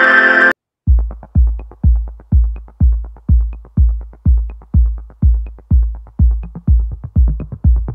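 Electronic background music with a steady kick-drum beat, about two beats a second, starting after a short burst and a brief gap near the start.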